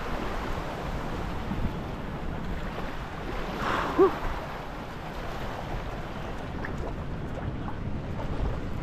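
Steady rush of waves on open water, with wind buffeting the microphone. About four seconds in there is a brief, short pitched sound.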